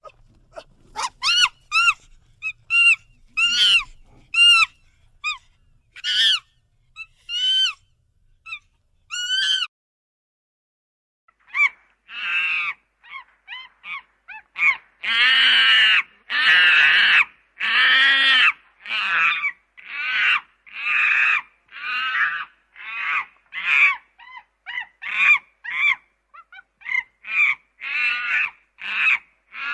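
Monkey calls: first a run of short, high calls whose pitch arches up and down, then, after a brief pause about ten seconds in, a long series of louder, harsher calls at about one or two a second.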